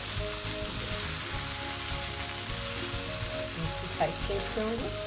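Chicken pieces frying in butter and oil in an open grill pan, sizzling steadily. About four seconds in, a spatula knocks against the pan as the pieces are moved.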